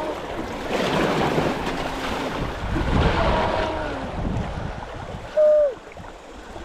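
Water splashing and rushing around a kayak, with wind on the microphone, swelling about one and three seconds in. About five seconds in comes one short, loud, high squeak-like note that falls in pitch as it ends.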